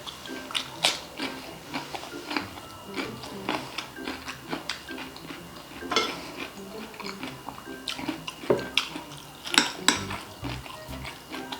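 Eating crispy fried chicharon bulaklak: irregular crackly crunches and clicks from bites and chewing, mixed with utensil and plate clinks. A few sharper crunches stand out near the middle and toward the end.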